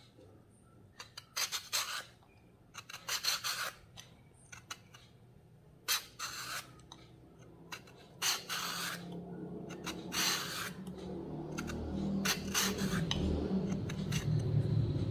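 A sharp, new Y-shaped vegetable peeler rasping across fresh coconut meat in a series of separate strokes, each pull shaving off a thin ribbon of coconut.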